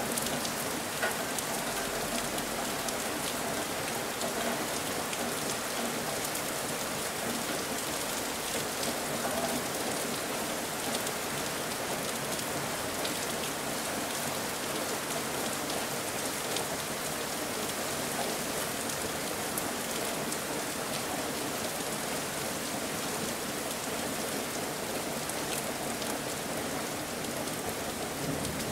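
Steady rain falling: an even hiss with scattered sharper drop sounds.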